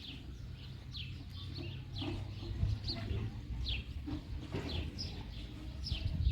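Small birds chirping: short, high notes that fall in pitch, repeated irregularly about one or two times a second, over a low steady rumble.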